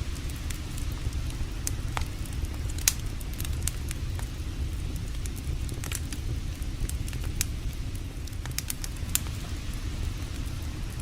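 Campfire crackling, with sharp pops at irregular moments, the strongest about three seconds in and again near nine seconds, over a steady low rumble.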